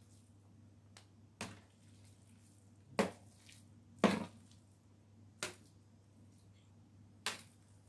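A utensil knocking and scraping against a tray while scooping mashed food from it: about five short, uneven knocks, the loudest two a second apart near the middle.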